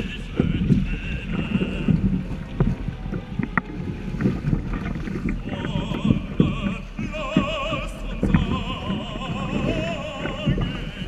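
Music with an operatic singing voice, its long notes wavering with vibrato, over the rough, gusty rumble of wind and water from a small sailing boat underway.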